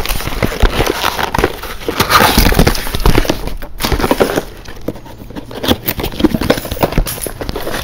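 Packaging being handled and torn into: rustling, crinkling and clicking of bagged cords and parts in a box, busy throughout and a little quieter after about halfway.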